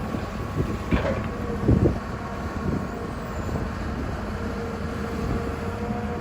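Excavator's diesel engine running steadily, with a faint steady whine and a few short knocks about one and two seconds in.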